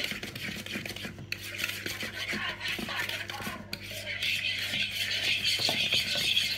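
A fork beating eggs in a plastic mixing bowl: steady scratching and clicking of the fork against the bowl, louder in the second half.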